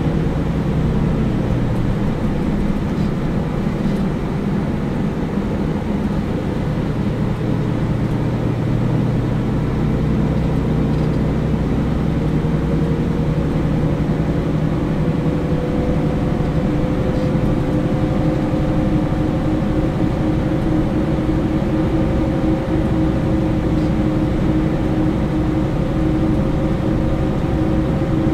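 Inside a moving MAN A20 Lion's City Ü city bus, heard from the rear seats: a steady diesel engine and driveline rumble with road noise. Partway through, a whine begins to rise slowly in pitch.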